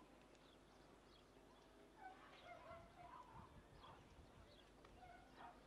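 Near silence: faint outdoor background with a few brief, faint calls scattered through it.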